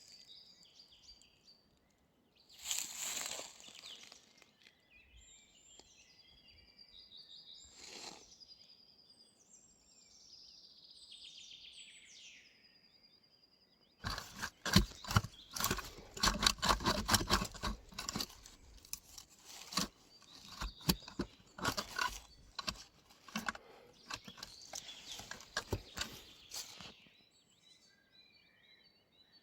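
Small songbirds chirping and twittering. Then, about halfway through, a long, loud run of irregular crunching and crackling of dry material lasts about thirteen seconds and stops shortly before the end, with the birds heard again after it.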